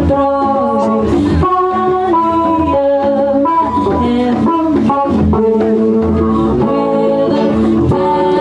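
A live band playing a song through a PA: a singer over cello, electric guitars, bass and a drum kit.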